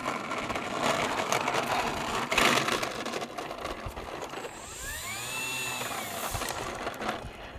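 Electric motor and propeller of an RC model Cessna 150 whining up and back down in pitch over a second or two, about five seconds in, over steady wind hiss.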